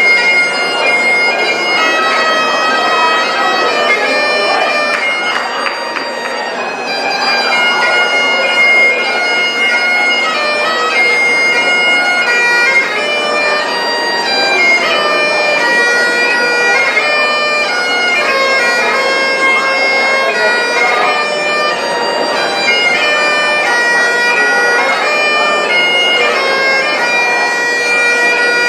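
Highland bagpipes playing a tune: the chanter's melody moves from note to note over the steady drones.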